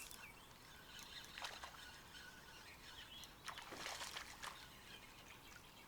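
Faint outdoor ambience by a lake: a low steady hiss with a few soft rustles or knocks around the middle and a few faint bird chirps.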